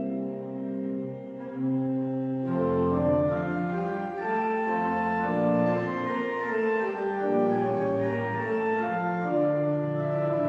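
Organ playing slow sustained chords. About two and a half seconds in, the sound grows fuller and louder, with a deeper bass.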